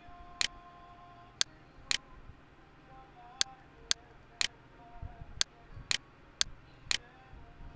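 Computer mouse button clicking: about ten sharp, short clicks, mostly in pairs about half a second apart.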